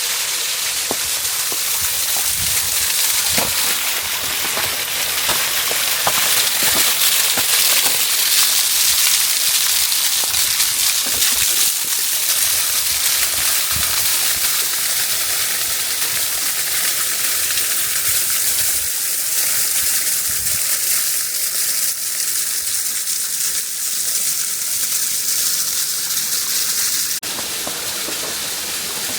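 Partly frozen waterfall, with water still pouring through the ice, giving a steady loud rush. There are a few soft low thumps in the first half, and the sound changes abruptly near the end.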